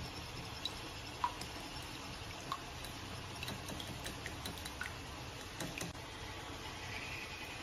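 Small wire whisk beating eggs in a ceramic bowl: light, irregular clicks of the wire tapping the bowl over a faint hiss.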